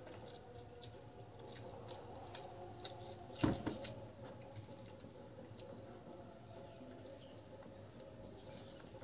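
Close-up eating sounds: fingers squishing and mixing rice with dal and egg curry on a plastic plate, with small wet clicks and chewing. One louder thump about three and a half seconds in.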